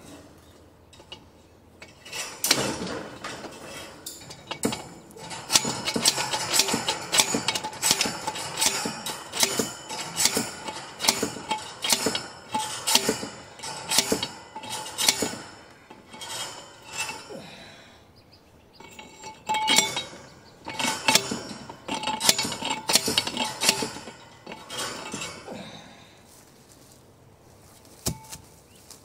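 Metal clinking and rattling in rapid, irregular runs of sharp strikes with a slight ring, starting about two seconds in, easing off briefly in the middle and dying away near the end.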